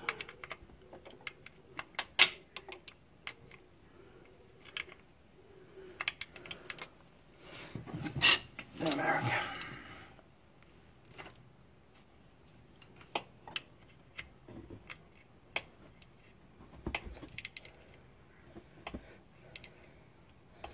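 Small metal 8 mm spanner clicking and scraping on the crankshaft position sensor's retaining bolt as it is given a few more small turns to tighten it. The clicks are scattered and light, with a louder knock and rustle about eight seconds in.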